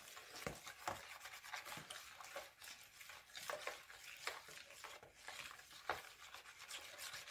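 Metal spoon stirring fresh yeast and sugar into lukewarm water in a plastic bowl, with faint, irregular scrapes and light clicks against the bowl.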